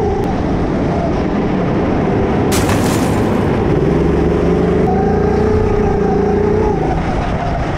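Go-kart engine running steadily at speed, heard from the driver's seat, with a short rush of noise about two and a half seconds in.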